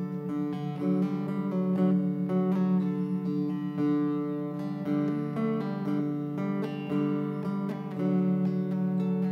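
Sape, the carved wooden boat lute of Borneo, played solo: a run of plucked melody notes over steady, repeating low notes.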